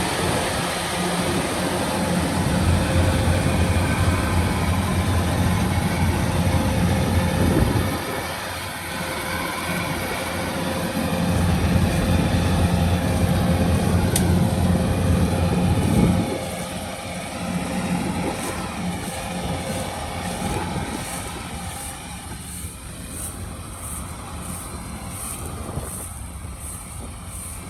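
Rice combine harvester engine running. It is loud for the first eight seconds and again from about eleven to sixteen seconds, with a lull between, then grows fainter.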